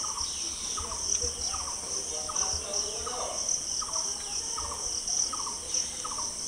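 Insects shrilling steadily in a high continuous trill, with a lower chirp repeating a little more than once a second.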